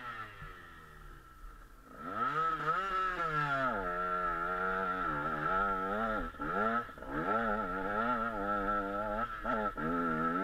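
KTM 125 SX two-stroke motocross bike engine, ridden hard. The revs fall away at first, then about two seconds in the throttle opens and they climb sharply, rising and dipping through shifts and bumps as the bike pulls up a steep hill under load.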